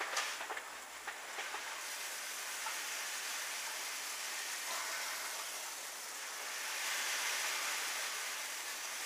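Crushed malt pouring in a steady stream from a bag into hot strike water in a cooler mash tun, a continuous hissing pour that swells a little past the middle.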